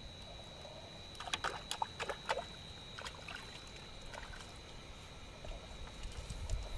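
Hands splashing and dabbling in shallow muddy water at a stream's edge, with a run of sharp splashes and drips between about one and two and a half seconds in and a few softer ones after. A steady high-pitched insect trill, like crickets, runs underneath.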